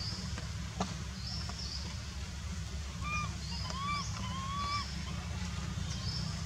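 Three short, faint arching calls from a macaque about halfway through, over a steady low rumble and short high chirps repeating about once a second.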